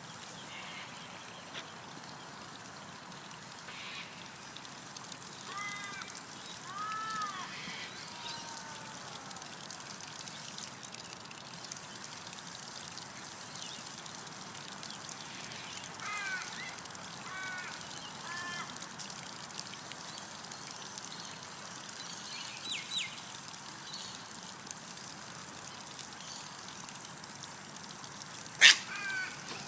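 Birds calling in short, curving, pitched calls, a few in a row at a time, with one loud sharp call near the end, over a steady background hiss.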